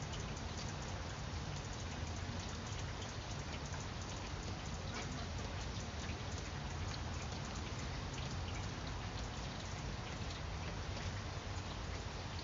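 Steady rain falling on broad grapevine leaves: a dense patter of separate drop taps over an even hiss, with a low rumble underneath.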